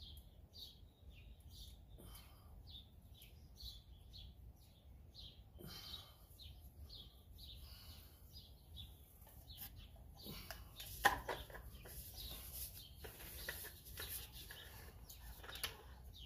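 Faint, repeated chirping of small birds, with light clicks and clatter from the foam cannon's brass head, nozzle and bottle being handled and fitted together. The sharpest click comes about eleven seconds in.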